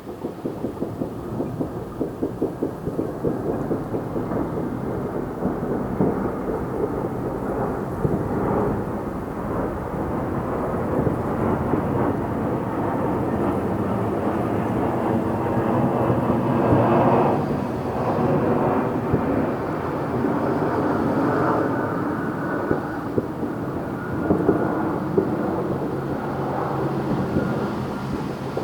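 Many fireworks going off at once: a dense, continuous crackle of pops and booms with a rumbling undertone, with a run of sharp bangs in the first few seconds.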